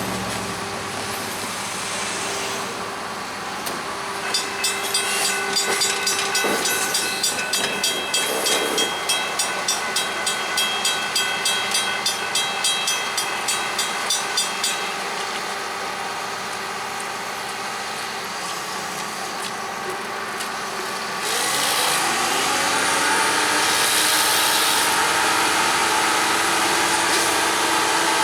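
Railroad crossing bell ringing at about three strokes a second for around ten seconds. About two-thirds of the way through, a louder steady rushing hiss of rail machinery starts, with an engine note that rises in pitch.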